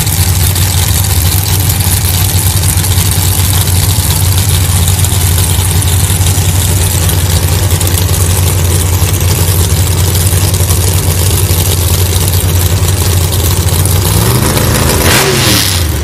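Pro Modified drag cars' engines idling loudly with a steady low drone. Near the end, one engine revs up and drops back.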